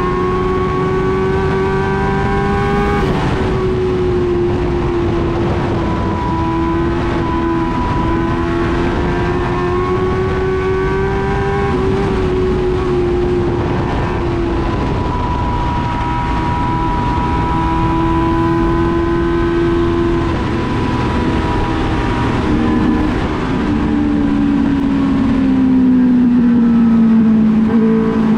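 Dwarf race car's engine heard from inside the cockpit, running hard around the oval. Its note rises and falls every few seconds with the throttle and drops steadily in pitch near the end.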